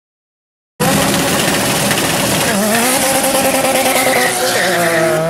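After near silence, a drag car's engine cuts in suddenly about a second in, held at high revs during a burnout, its pitch wavering and then climbing near the end.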